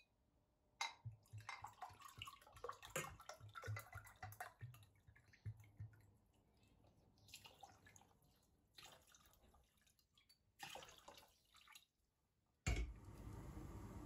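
Water poured from a glass bottle into a stainless steel saucepan, splashing in uneven spurts for several seconds, with three shorter pours after it. Near the end a steady hiss starts suddenly.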